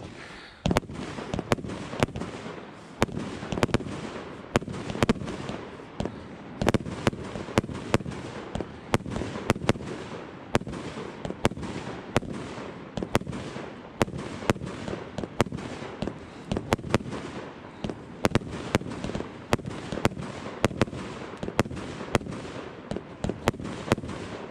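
El Gato Pirotecnia 'Happy Night' 25 mm firework compound cake firing fast, shot after shot: sharp launch and burst bangs about two to three a second over a continuous noisy rumble.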